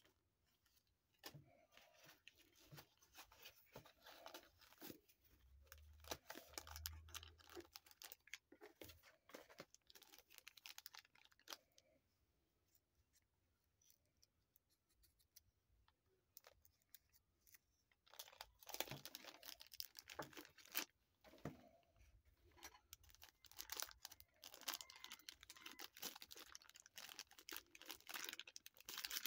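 Rustling and crinkling of paper and clear plastic packaging being handled, in two spells of quick crackles and small clicks with a near-silent pause between; the louder second spell is the plastic bag around a stainless steel watch being handled and opened.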